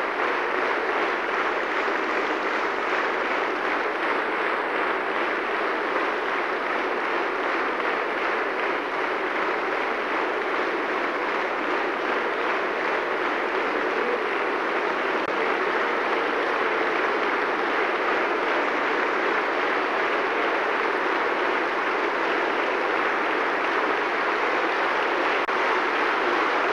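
Concert audience applauding steadily, an ovation at the close of the performance.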